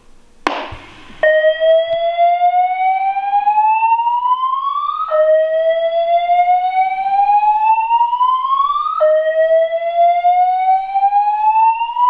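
Fire alarm speaker/strobes sounding the slow whoop evacuation tone from a voice evacuation panel: a loud tone that glides upward over about four seconds, drops back and repeats, three times. A sharp click comes just before the tone starts.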